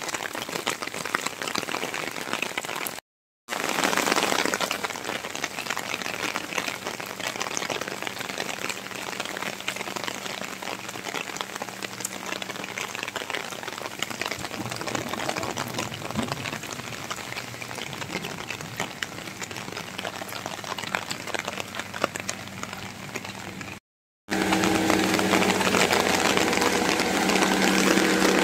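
Steady rain falling on wet paved ground, a dense even hiss, broken by two short silent gaps about three seconds in and near the end. After the second gap a steady low hum, like an engine running, joins the rain.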